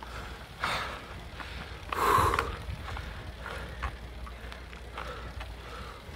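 Heavy breathing of a road cyclist climbing a hill: a few hard breaths, the loudest about two seconds in, then softer breathing, over a steady low rumble of wind and road noise from riding.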